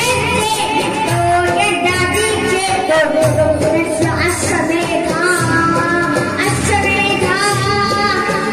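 A boy singing a song into a handheld microphone over accompanying music with a steady beat.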